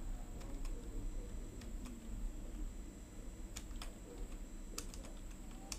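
Faint computer keyboard keystrokes: a dozen or so irregular, sparse clicks as a word is typed and corrected, over a low steady hum and a faint high whine.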